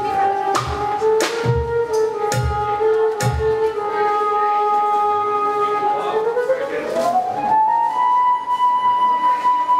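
Electronic theremin-style tone from a theremin bollard played by moving the hands near it: a held note that steps slightly in pitch, then glides up about six seconds in and holds a higher note. A regular thump about once a second sounds under the first few seconds.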